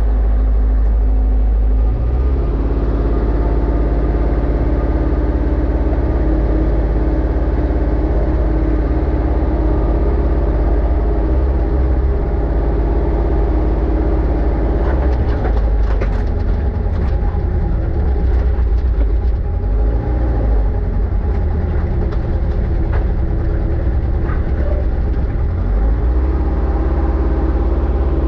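Kubota KX161 mini excavator's diesel engine running as the hydraulic levers are worked, its pitch sagging and recovering several times in the second half, with a few light clicks. The engine is losing power under load, which the operator suspects comes from overheating.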